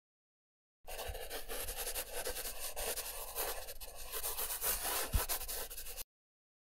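Scratchy rubbing sound of a pencil sketching on paper, starting about a second in and cutting off abruptly about six seconds in, with a short low thump just before it stops.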